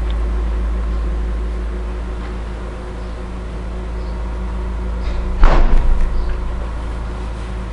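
Steady low electrical hum, with one sudden knock about five and a half seconds in that rattles briefly before dying away.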